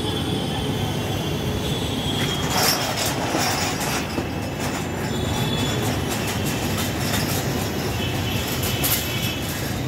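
Busy city road traffic: a steady, loud rumble of passing vehicles, with thin high-pitched squeals now and then.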